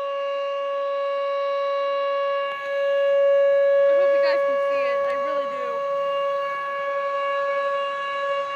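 Electronic outdoor warning siren, a Whelen WPS 2807, sounding a steady single-pitch tone that swells and fades slightly in loudness.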